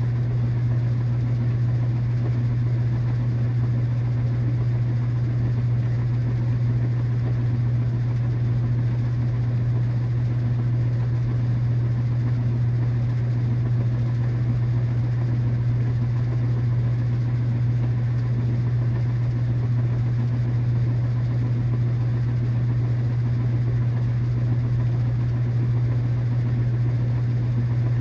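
KitchenAid washing machine running, a steady low hum that holds an even level with no breaks or changes.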